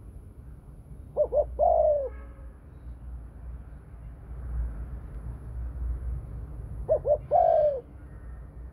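Spotted dove cooing twice, about six seconds apart: each phrase is two short coos followed by a longer coo that falls in pitch.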